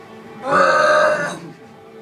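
A woman's loud burp, one long belch starting about half a second in and lasting about a second, over faint background music.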